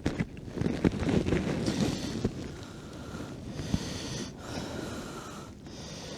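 Wind buffeting the microphone in a blizzard, with scattered knocks and rustles of handling.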